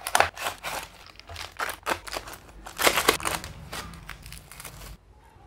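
A cardboard box and its packaging being opened and handled by hand: a quick run of crackling and rustling, heaviest about three seconds in, that dies away near the end.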